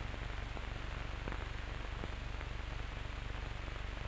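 Steady hiss of an old cine film soundtrack, with a low hum and a few faint clicks of crackle.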